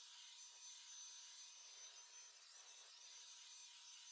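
Faint, steady hiss of a compressed-air spray gun laying on polyurethane finish, with a thin steady whine.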